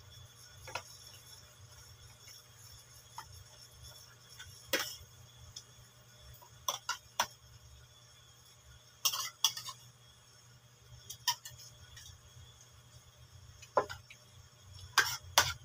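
Metal spoon and fork clinking and scraping against a ceramic plate while eating, in irregular clinks a second or few apart with a quick flurry near the end.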